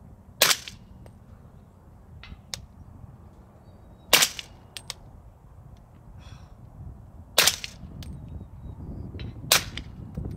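Suppressed AR-15 in .300 Blackout, with an AAC Titan Ti suppressor, firing four subsonic 220-grain rounds a few seconds apart, each a sharp muffled report. Wind buffets the microphone throughout, growing stronger near the end.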